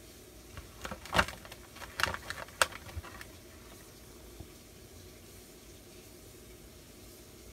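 Small plastic toy figures being handled on a hard, glossy shelf: a scatter of light clicks and taps over about two seconds, with two louder knocks among them, as a tiny plastic bear figure is picked up.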